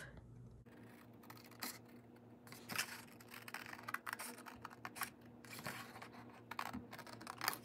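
Scissors cutting through a sheet of white card along a marked line: a faint run of short, irregular snips.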